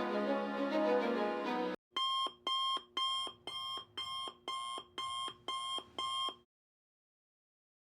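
Background music cuts off abruptly, followed by an electronic alarm beeper sounding about nine short, evenly spaced beeps, roughly two a second, before everything goes silent near the end.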